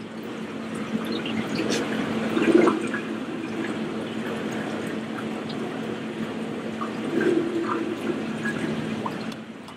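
Aquarium water sloshing and gurgling as a hand works in a reef tank and a plastic bag is dipped in and filled with tank water, with two louder surges of splashing, about two and a half and seven seconds in. A steady low hum runs underneath.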